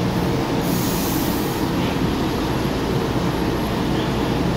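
Stationary São Paulo Metro train at the platform, doors open, its onboard equipment giving a steady hum over a low rumble, with a short high hiss about a second in.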